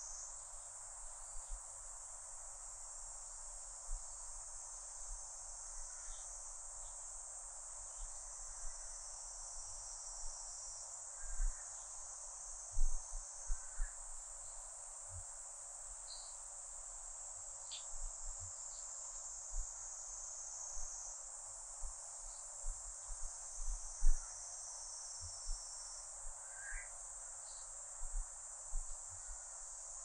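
A chorus of cicadas: a dense, steady high buzz, with brief bird chirps here and there and scattered low thumps.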